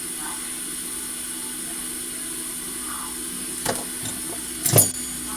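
Steady hiss of moving air with a low hum from electronics repair bench equipment, broken near the end by two sharp clicks, the second louder.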